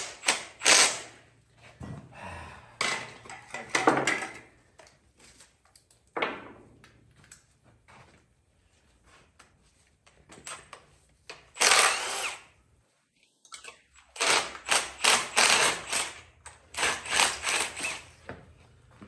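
Power impact wrench firing in short bursts, several in quick succession and one longer burst of about a second, loosening bolts during an engine teardown.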